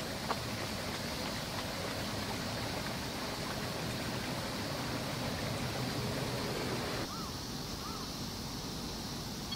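Steady hiss of outdoor background noise, with two short, faint calls of a black-winged stilt about seven seconds in, each rising then falling in pitch.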